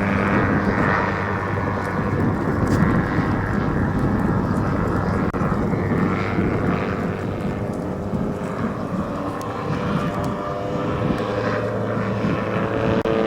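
Large radio-controlled model airplane in flight, its geared two-stroke boxer engine and propeller running steadily.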